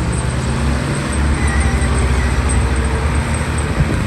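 Engine of a heavy earthmoving machine running steadily, a low rumble that swells a little after the first second, with a short knock near the end.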